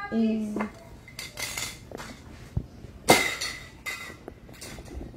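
Cutlery and dishes clinking, scattered clatter with a sharp clink about three seconds in that rings on for nearly a second.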